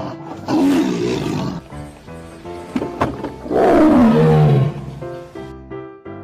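Tiger roaring twice, about three seconds apart, the second roar louder and sliding down in pitch as it ends, over a light children's background tune.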